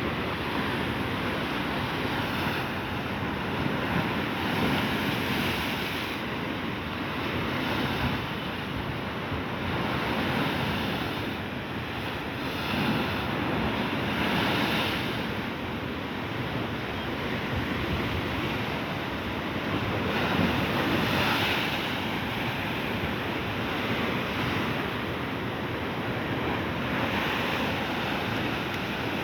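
Sea surf: waves breaking and washing in over a steady rush of water, swelling every few seconds.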